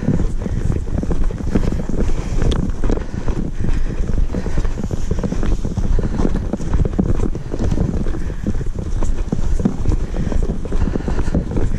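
Footsteps of a person walking briskly through dry grass, with wind buffeting the microphone in a steady low rumble.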